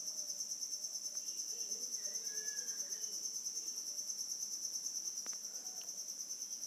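Crickets chirring steadily: a faint, high-pitched, rapidly pulsing trill.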